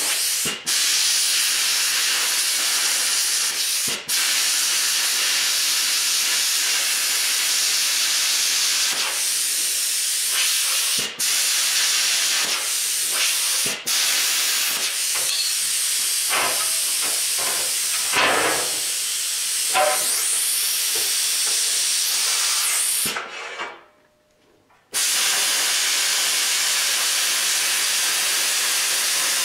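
Plasma cutter torch cutting through steel plate: a steady, loud hiss from the arc, broken by a few brief dropouts. The arc stops for about two seconds near the end, then starts again.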